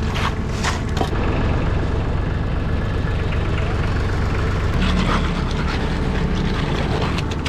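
Concrete truck's diesel engine running steadily, with short scraping sounds over it near the start and again in the second half.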